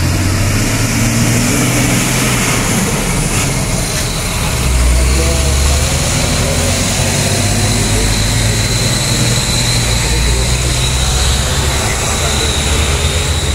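Diesel engine of a Hino fuel tanker truck running steadily as it passes close by, with a box truck following; the low engine note swells about five seconds in.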